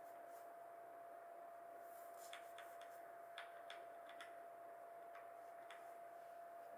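Faint, scattered clicks of keys pressed on a Razer BlackWidow Lite mechanical keyboard with Razer Orange tactile switches, about ten irregular taps in the middle of the clip over a faint steady tone.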